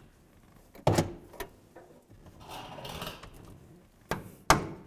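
Metal clunks and a short scrape from a rear parking-brake actuator lever and cable being worked by hand: one sharp clunk about a second in, a softer scrape midway and two more clunks near the end, the last the loudest.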